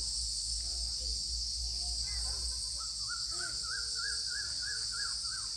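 A steady, high-pitched drone of insects, with birds calling over it. Short calls come through early on, then a quick run of repeated bird notes from about three seconds in to near the end.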